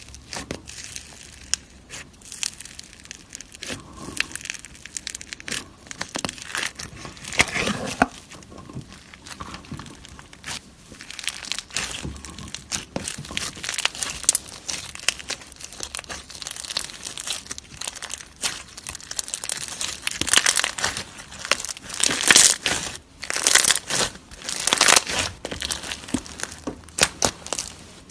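Slime being squeezed and kneaded by hand: a dense, irregular crackling and popping, with louder spells in the last third.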